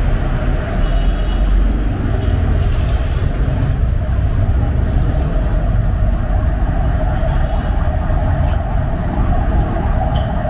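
Busy city street noise: steady road traffic with engines running and a constant low rumble.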